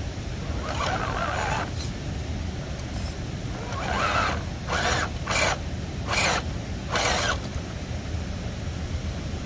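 Scale RC rock crawler (RC4WD Toyota Extra Cab) climbing a rock ledge, its motor, gears and tyres sounding in about six short bursts of throttle. The longest burst comes about a second in, and a run of shorter ones follows between four and seven seconds. A steady low rumble runs beneath.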